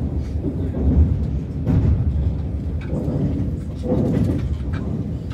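Low, steady rumble of a moving train heard inside the carriage, with faint muffled voices over it.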